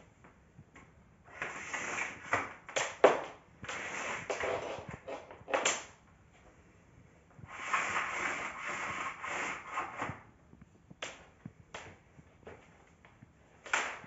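Power cord being pulled out of a Bosch BGS21X320 canister vacuum's cord reel in three long pulls, each a rushing, clicking noise about two seconds long, with a few light knocks after them.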